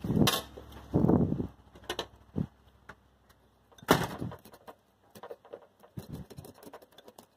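A door knocking open and shut near the start, then a pocketknife blade scraping scales off a sunfish on a glass tabletop in short, quick strokes.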